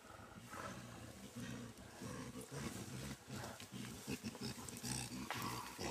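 Mountain gorilla giving a series of low, rough vocal sounds, mixed with crackling of leaves and stems.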